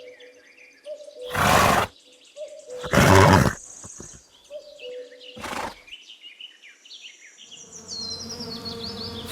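A horse snorting: three short, loud, breathy blows a second or two apart. Near the end a fly's steady buzzing fades in.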